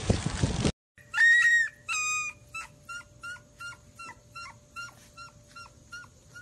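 Water splashing for the first moment, then, about a second in, a Siberian husky puppy crying: two longer high cries followed by a string of short whimpering yips, about three a second, each dropping in pitch and growing fainter.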